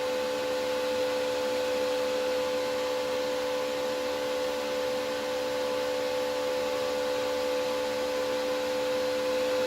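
Electric fan running steadily: an even whir with a constant two-note hum.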